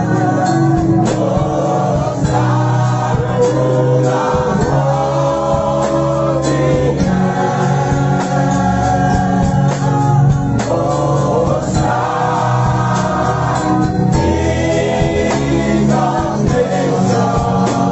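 Gospel praise song sung by a congregation and worship leader, with a live band accompanying under the singing.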